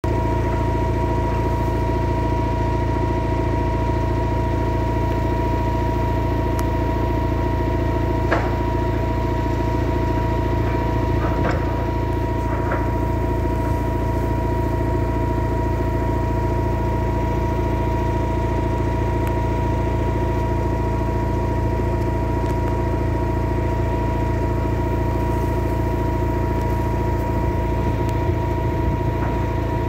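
An engine running steadily at a constant speed, with a steady whine over its drone and a few faint clicks.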